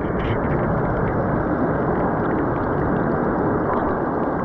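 Creek water heard with the microphone submerged: a steady, muffled rushing with the high end cut away.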